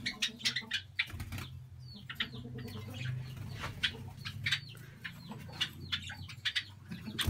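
Small caged birds chirping briefly and fluttering their wings, with short clicks and rustles, over a low steady hum.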